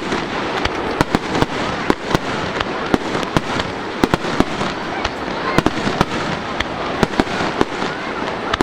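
Fireworks display going off in a rapid run of sharp bangs and crackles, several a second, with no let-up.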